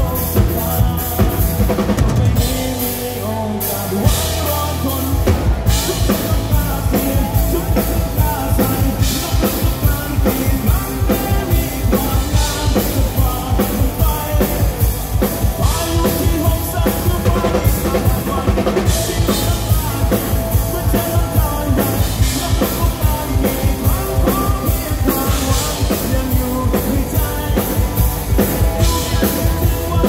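Rock band playing live, a full drum kit driving a steady beat under guitars and bass. About two seconds in the drums and low end drop back briefly, then a hard hit about four seconds in brings the full band back.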